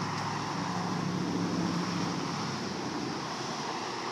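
Golf cart driving along: a steady low motor hum under a rushing noise, the hum stronger in the first half.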